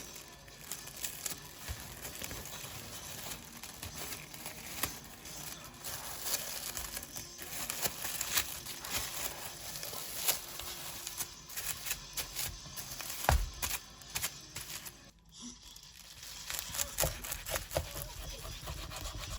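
Crinkling and rustling with many small clicks and knocks, like something being handled or unwrapped, with one heavier thump a little past the middle.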